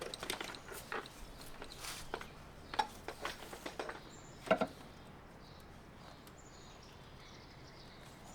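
Scattered light clicks, taps and rustles of aluminum trim coil and tools being handled while it is marked for cutting, the loudest tap about four and a half seconds in. After that it goes quiet, with a few faint bird chirps.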